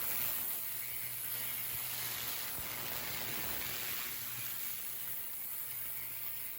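Steady spraying hiss that eases off slightly in the last couple of seconds, over a low steady hum.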